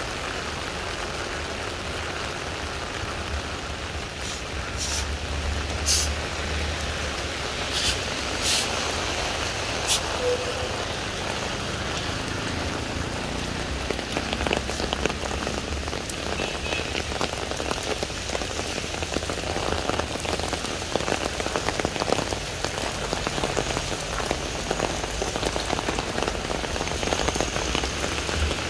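Steady rain falling on wet brick paving and a road. A few sharp clicks come about five to ten seconds in, and small drop ticks grow denser in the second half.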